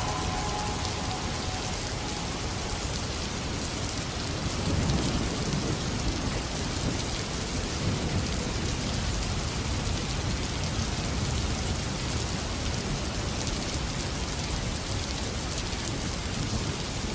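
Steady rain falling, an even hiss with a low rumble of thunder swelling about five seconds in.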